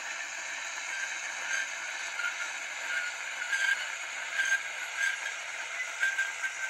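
Thin, tinny diesel engine sound from the tiny sound-decoder speaker of an N-scale Fleischmann M62 model locomotive as it rolls slowly along the track, with several brief squeaks scattered through it.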